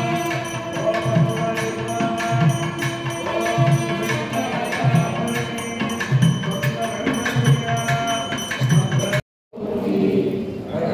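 Hindu temple devotional music: a steady drum beat under sustained melodic tones. It cuts out suddenly a little after nine seconds in, and chanting voices take over near the end.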